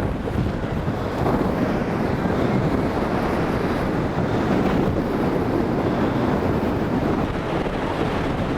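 Strong tropical-storm wind buffeting the microphone, with surf breaking beneath it: a loud, steady roar of noise.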